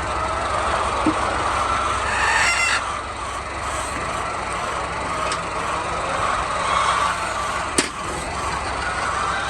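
A flock of chickens clucking and calling together, with one louder pitched call about two and a half seconds in, over a steady low mechanical hum. A single sharp click sounds near the end.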